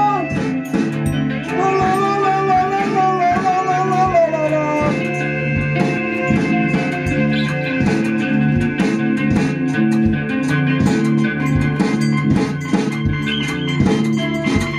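Live rock band playing: electric guitars over a drum kit keeping a steady beat. A wavering, bending high melody line runs for the first four seconds or so, then gives way to held, sustained chords.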